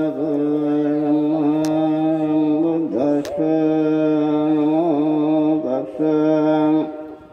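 A Buddhist monk chanting Pali in long, drawn-out held notes, one male voice with short breaks for breath about three seconds in and near six seconds, trailing off at the end.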